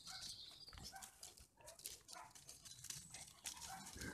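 Bullmastiff puppies wrestling in play: faint short growls and grunts, with paws scuffling on dry leaves.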